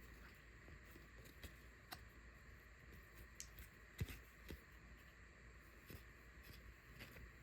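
Near silence with faint handling of trading card boxes and packs: scattered light clicks and one soft knock about four seconds in.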